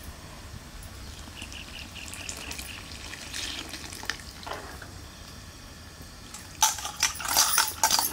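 Sambar simmering in a pot, a faint liquid sound, then from about two-thirds in a run of loud, sharp clicks and clatters.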